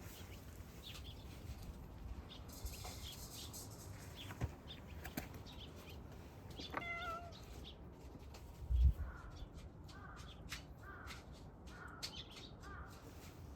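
Kittens meowing: one drawn-out call about seven seconds in, then a string of short calls in the second half. A single low thump comes about nine seconds in.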